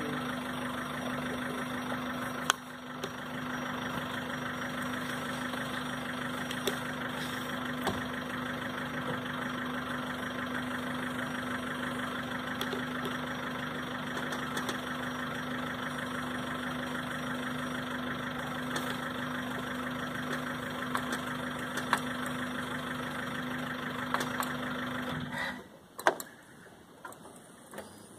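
Safari jeep engine idling with a steady hum, then stopping abruptly near the end, leaving a few faint clicks.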